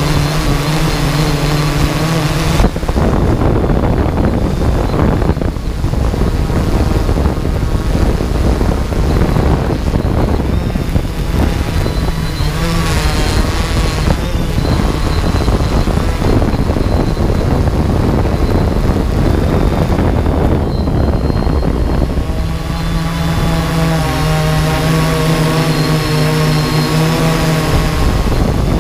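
A drone's motors and propellers humming with a steady pitched whine, which breaks off a couple of seconds in and returns about two-thirds of the way through. In between, a rough rumble of wind buffets the microphone.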